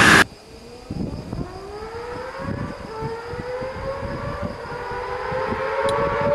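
A loud passage cuts off abruptly about a quarter second in. Then a performance engine's note climbs slowly and steadily in pitch and grows louder as the vehicle accelerates.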